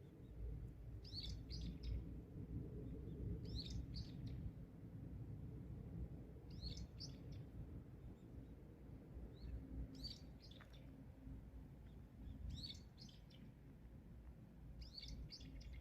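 A small songbird singing short phrases of several quick, high chirping notes, repeated six times at intervals of about two and a half to three seconds, over a faint low rumble.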